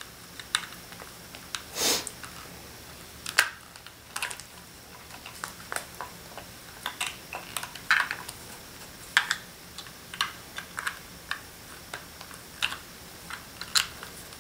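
Irregular small clicks and clacks of hard plastic and metal parts being handled and fitted together as GoPro mounts are attached to a small clamp, a few louder knocks among lighter taps.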